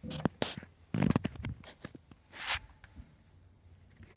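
Hard plastic knocks and clicks as a PVC drain pipe and slip-joint fitting are handled and pushed onto a sink tailpiece. There is a cluster of knocks about a second in and a short rustle a little later.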